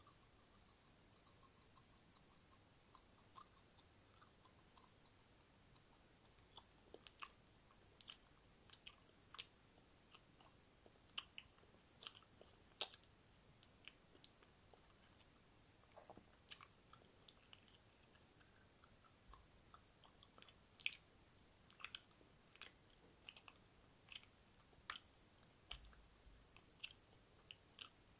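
Wet mouth sounds: irregular clicks and smacks of the lips and tongue, sometimes several close together, sometimes spaced a second or more apart.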